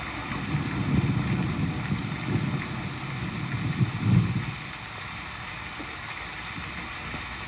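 Steady rain falling, with low rumbling swells about a second in and again around four seconds.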